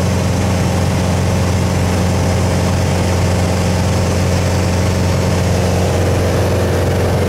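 Engine and propeller of a single-engine light airplane in cruise flight, heard from inside the cabin as a loud, steady, even drone.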